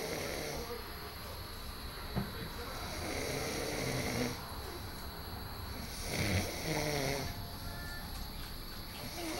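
Snoring in slow, regular breaths, one snore about every three seconds.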